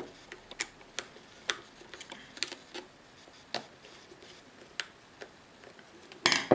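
Small screwdriver turning a screw into a Remington hair clipper's blade, giving faint, irregular clicks and ticks of metal on metal, with a louder clatter of clicks near the end.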